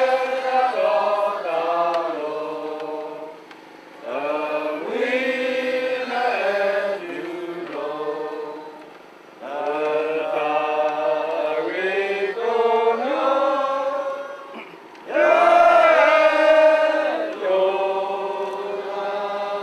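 Unaccompanied chant-like singing in long phrases, broken by three short pauses, the last phrase fading out at the end.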